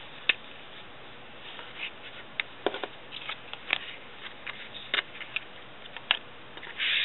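Washi tape being laid and pressed onto a paper notebook page by hand: scattered sharp clicks and taps from the tape roll and a plastic card against the paper, and a short rasp near the end.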